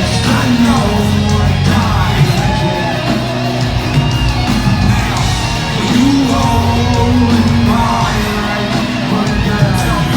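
Live rock band music in a large concert hall, with singing voices and shouting over it.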